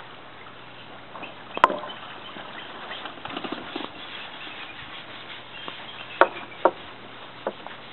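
A few sharp knocks, the loudest about a second and a half in and two close together near the end, over faint high descending chirps of bald eagles.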